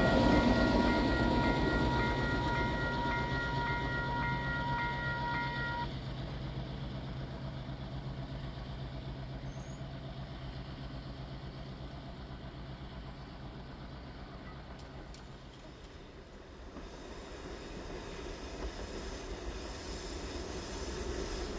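Heritage diesel-hauled train running past and fading into the distance, engines and wheels gradually dying away, with a steady high whine that cuts off about six seconds in. Near the end a train is heard again, growing louder as it approaches.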